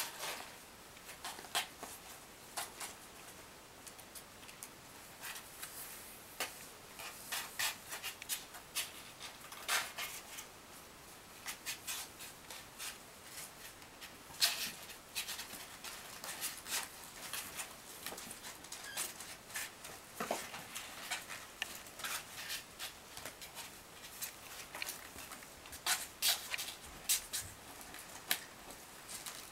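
Kittens scrabbling and clawing at a cardboard box wall and blanket: irregular light scratches and taps, a few at a time.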